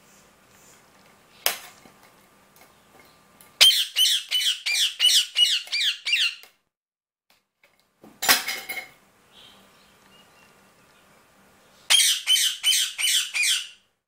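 Indian ringneck parakeet squawking: two runs of rapid, harsh repeated calls, about four a second, with one short loud call between them. A sharp click comes about a second and a half in.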